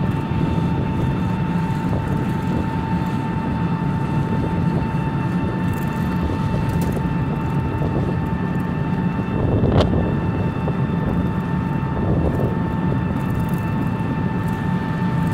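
A steady engine-like drone with a constant hum, unchanging in pitch and level, and a single sharp click about ten seconds in.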